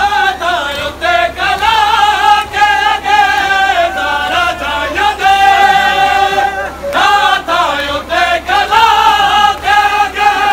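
A group of men chanting a mourning noha in a lamenting melody, with the regular slaps of hands beating bare chests (matam) keeping time. The chant breaks briefly near seven seconds.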